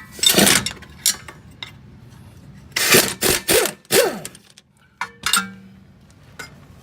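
Impact wrench run in several short bursts, loosening a rear strut's upper nut with a 19 mm socket on an extension; the pitch falls away after some bursts as the tool spins down.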